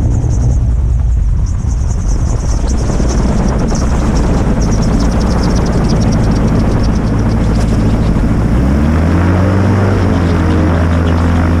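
Magni gyroplane's engine and pusher propeller running at low power as the machine rolls over grass after landing. About nine seconds in the engine speeds up, its pitch rising, then holds steady at the higher speed.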